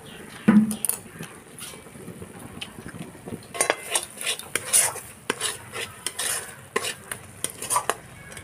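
Flat steel spatula stirring and scraping a thick onion-garlic-spice paste around a metal kadai, in irregular scrapes and clacks with a light sizzle of frying. There is a louder knock about half a second in. The masala is at the bhuna stage, being fried until the oil separates.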